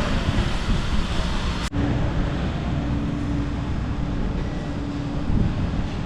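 Steady rumble and hiss of a moving vehicle, with a steady hum for a few seconds in the middle; the sound breaks off abruptly and resumes about two seconds in.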